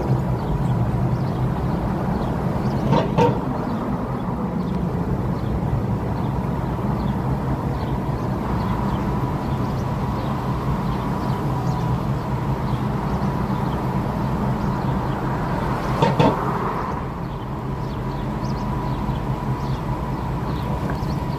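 Road traffic and wind noise heard from a moving bicycle: a steady rushing hum with a faint constant tone. Two short, louder knocks stand out, one a few seconds in and one about three-quarters of the way through.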